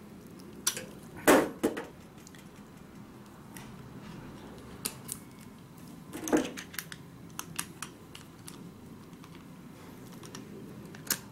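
Scattered clicks and knocks of KNIPEX insulated socket-set parts being fitted together by hand and handled, the loudest about a second in and again past six seconds.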